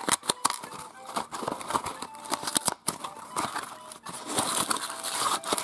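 A toy surprise package being opened by hand: crinkly packaging crackling and tearing, with many small clicks of handling.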